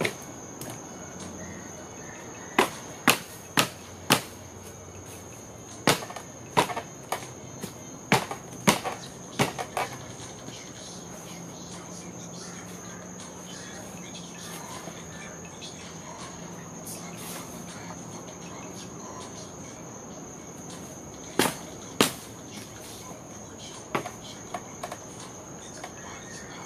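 Wooden pallet being broken apart by kicking and pulling: sharp cracks and knocks of wood in short clusters, with a long pause in the middle. Crickets keep up a steady high trill behind them.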